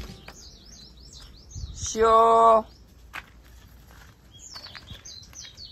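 Small birds chirping in quick, repeated short notes throughout, with one loud, steady, drawn-out voice call of about half a second about two seconds in.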